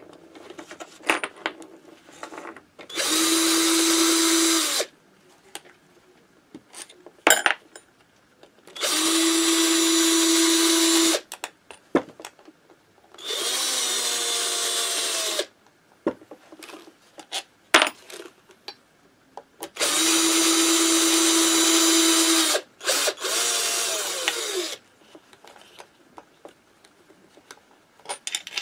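Cordless drill-driver backing out the screws of a Minarelli AM6 engine's aluminium crankcase. It runs in five bursts of about two seconds each, and the speed dips and rises in two of them as the trigger is feathered. Between the bursts come light clicks and metallic clinks as the bit is set on the next screw and the screws are handled.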